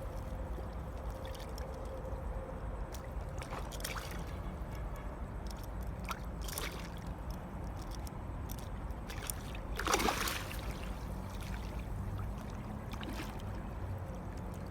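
Water sloshing and splashing over a steady low rumble, with a few short splashes; the loudest comes about ten seconds in.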